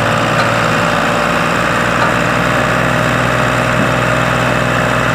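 Farm tractor diesel engine working hard under a heavy load, a steady even drone, as it pulls a loaded trolley up a slope.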